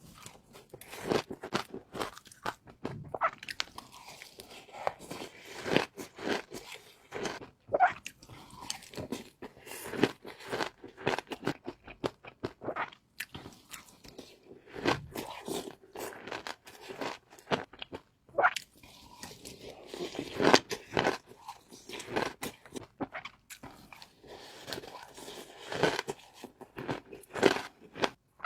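Close-miked eating: a person biting and chewing crunchy food, a dense irregular run of crisp crunches and crackles.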